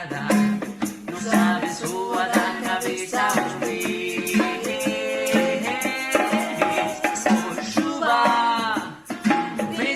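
Acoustic song with a sung melody over steady rattle-like hand percussion.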